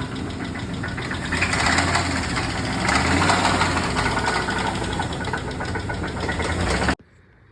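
Jeep 5.7 Hemi V8 running with a rapid, steady knock from the bottom end. It is rod knock from a connecting-rod bearing with excessive play. The sound cuts off suddenly near the end.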